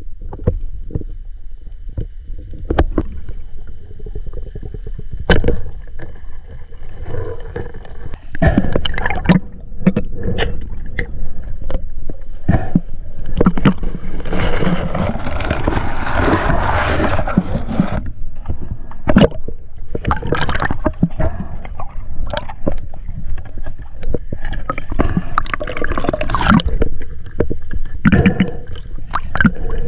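Water sloshing and splashing, with scattered sharp knocks and clatters throughout and a longer, louder rush of splashing water about fourteen seconds in.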